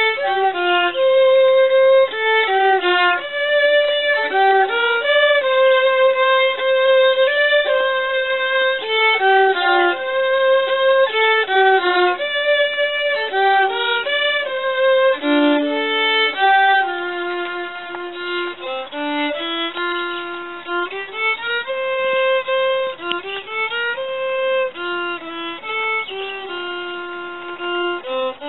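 Two fiddles playing a Québécois tune together, one melody line of held notes and quicker runs. Near the end the older fiddler lowers his instrument and one fiddle carries on alone.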